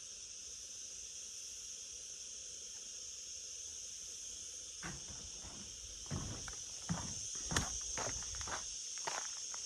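Insects chirring steadily at a high pitch. About halfway through, footsteps start up at a walking pace, about two steps a second.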